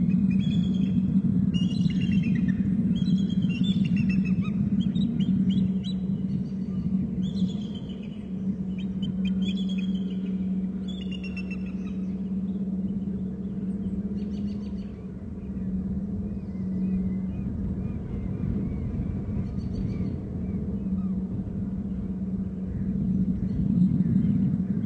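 Bald eagles calling: repeated series of high, falling chirping notes, frequent for about the first twelve seconds and then sparse. A steady low hum runs underneath.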